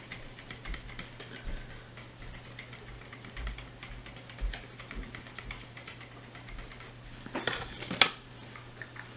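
Light, irregular clicks and taps of small makeup items being handled. Near the end comes a louder clatter as something is set down.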